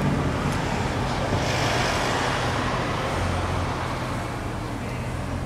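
A V8 engine idling with a steady low hum, most likely the 1966 Ford Thunderbird's own. A brief swell of rushing noise rises and fades about one and a half to two and a half seconds in.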